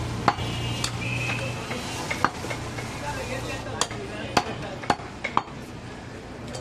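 A butcher's knife knocking sharply and irregularly against a wooden log chopping block as goat meat is trimmed, about eight knocks in all.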